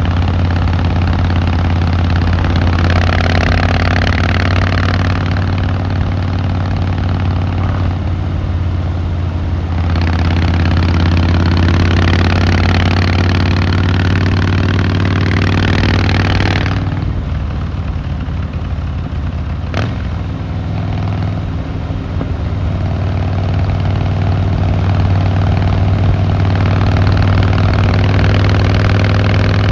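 Harley-Davidson Fat Boy Lo's V-twin engine and exhaust running while riding, with a steady low drone. Wind and road rush swells and eases several times as speed changes, and there is one sharp click about twenty seconds in.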